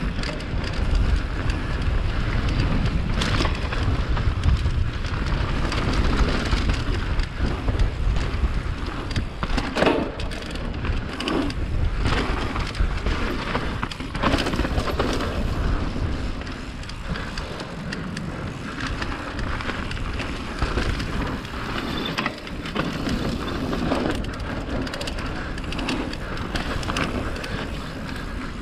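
Mountain bike descending a dirt forest trail at speed: steady tyre rumble and wind rushing over the action camera's microphone. The bike rattles, and sharp knocks come now and then over bumps.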